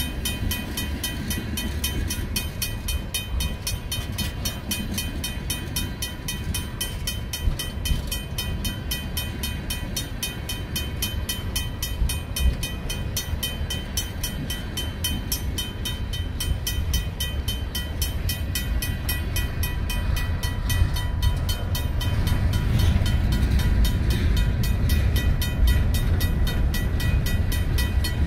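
Freight cars rolling slowly past with a steady low rumble of wheels on rail, growing louder over the last several seconds. Over it a RACO mechanical crossing bell rings steadily with rapid, even strokes.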